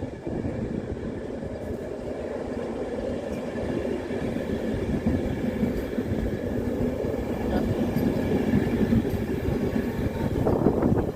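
A train running, a steady rumble that grows slowly louder, with a faint high whine above it.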